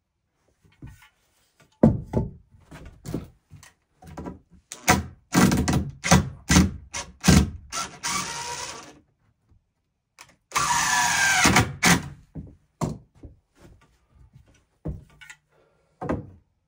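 Cordless impact driver driving screws into a wooden stud, in two runs of a few seconds each, with sharp knocks on the wood before, between and after.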